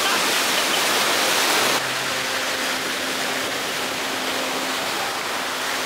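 Steady rushing noise that changes abruptly about two seconds in, after which a faint steady hum sits under it.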